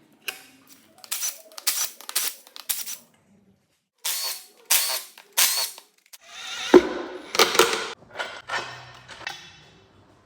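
Tools at work on an engine being torn down: a series of sharp metallic clacks and short bursts, with a longer rattling stretch about six to eight seconds in.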